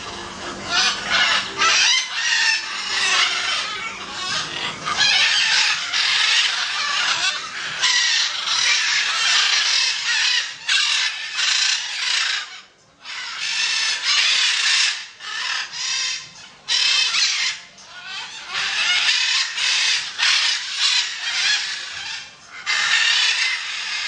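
Blue-and-yellow macaws squawking: loud, harsh calls one after another, with a short pause about halfway through.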